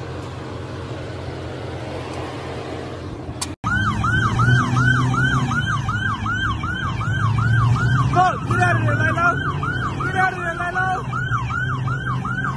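Police car siren on a fast yelp, rising and falling about three times a second, over a low steady engine rumble. For the first three and a half seconds, before a sudden cut, there is only a steady rushing noise with a low hum.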